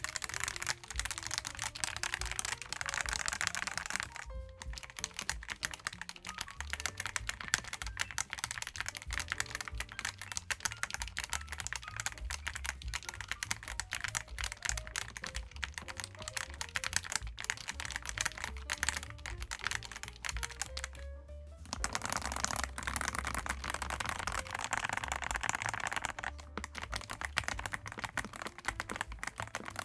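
Fast, continuous typing on a YUNZII gasket-mounted mechanical keyboard with PBT double-shot keycaps. The keys clack in dense runs, broken by two short pauses, over quiet background music.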